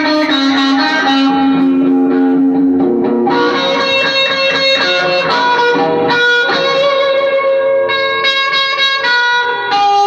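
Electric guitar playing slow, sustained notes that ring out and change about once a second.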